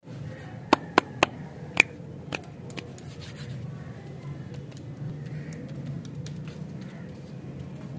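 Fingers tapping and brushing over plastic-wrapped lollipops: four sharp taps in the first two seconds, then lighter ticks and rustles, over a steady low hum.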